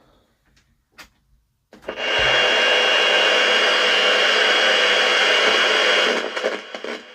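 The 1983 Bush radio alarm clock's speaker giving out a loud, steady hiss of radio static with a thin high whistle in it. It starts suddenly about two seconds in, lasts about four seconds, then breaks up and cuts out. This is the faulty set sounding off untuned, in line with its reported fault of crackling and not picking up a station.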